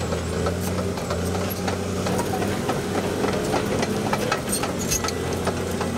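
Crawler bulldozer's diesel engine running steadily with a low hum, with many short sharp clicks and cracks scattered over it.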